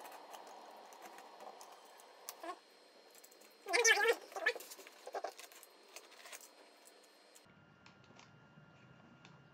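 Box cutter blade scraping and picking at the packing tape on a cardboard shipping box, with light clicks and cardboard rustle as the box is turned in the hands; the tape is not giving way. A louder, brief squeaky burst comes about four seconds in.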